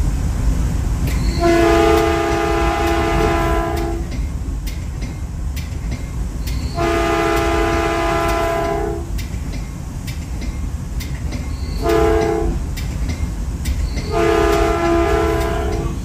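Caltrain commuter train's multi-tone horn sounding the grade-crossing signal: long, long, short, long. A steady rumble of the moving train runs underneath.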